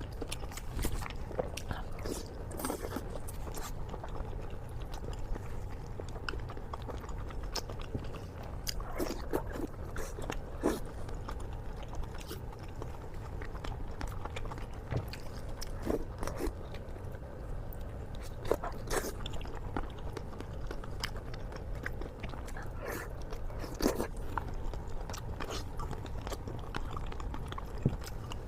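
Close-miked chewing and biting of fatty pork belly: irregular wet smacks and crunchy clicks of mouth sounds throughout.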